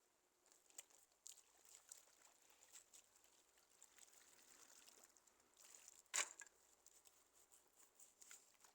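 Near silence with faint scattered clicks and taps, and one louder brief noise about six seconds in.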